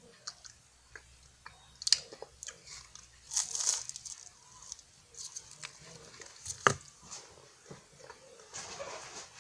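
Close-miked crunching bites and chewing of a flaky Haitai French Pie pastry, irregular crackles with two sharp crunches, one about two seconds in and one near seven seconds.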